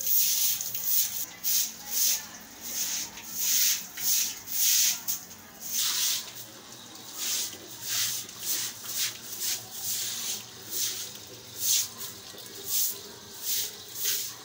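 Short stiff broom (jhadu) scrubbing a wet concrete floor in brisk, repeated rasping strokes, about one or two a second.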